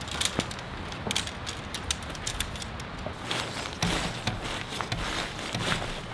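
Tent fabric rustling and crinkling, with scattered light clicks and taps as tent poles are handled and fitted to the tent.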